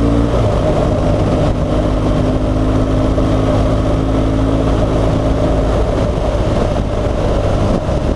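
BMW R1200 GS boxer-twin motorcycle engine running while riding slowly over a rough road, with a strong low rumble. Its pitch shifts about a third of a second in, then holds fairly steady.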